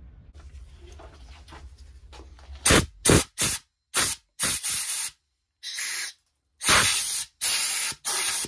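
Compressed air from a rubber-tipped blow gun, fired in about ten short hissing blasts, the later ones longer, clearing aluminium drill chips out of a freshly drilled bolt hole in a transmission case. Faint clicks and rustling come before the first blast.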